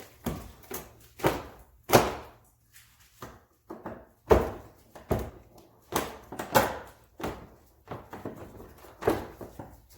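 Irregular sharp plastic clicks and knocks, about a dozen in all, as a trim tool pries push-pin clips out of a plastic inner fender liner.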